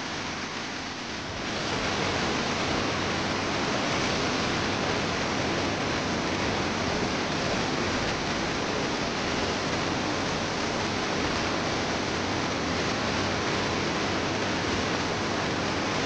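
Waterfall water rushing in a steady, even roar, getting louder about a second and a half in.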